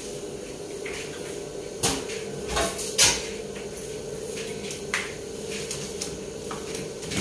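Several sharp knocks and clacks of pots, pans and a cupboard being handled, the loudest about three seconds in, over a steady hum.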